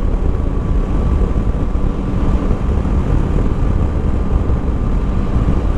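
Yamaha Tracer 9 GT's three-cylinder engine running at a steady cruise under a continuous rush of wind and road noise, heard from the rider's helmet.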